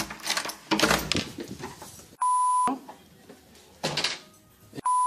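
Two half-second bleep tones, each one flat, steady pitch switched on and off abruptly, about two and a half seconds apart. Around them are bursts of rustling and clatter as a metal door knob is turned and the door pushed open.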